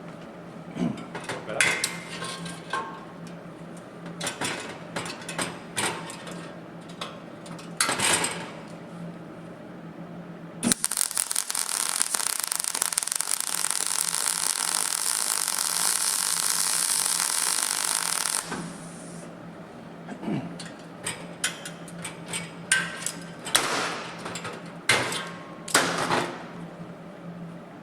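MIG welder laying a weld bead on thin car-body sill steel: the arc crackles steadily for about seven seconds, starting about ten seconds in. Before and after it come short crackling bursts and clicks, with a steady low hum underneath.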